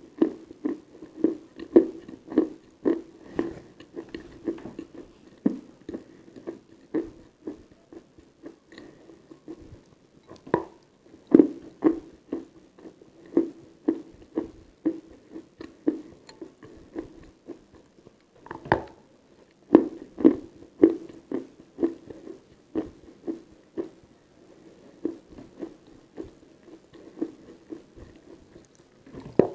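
Close-miked chewing and crunching of Khrapovsky chalk: a steady run of chews about two a second, with a few sharper, louder crunches.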